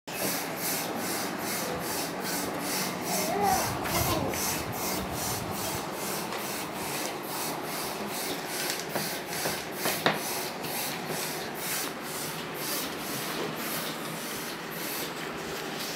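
Crayons being rubbed back and forth on paper worksheets: steady rhythmic scribbling strokes, about three a second, fading near the end. There is a faint brief voice a few seconds in and a sharp tap about ten seconds in.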